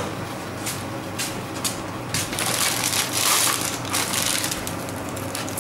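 Disposable plastic piping bag full of chocolate fondant mix crinkling and rustling as it is handled and lifted out of a tub, with a longer crackle through the middle. A steady low hum runs underneath.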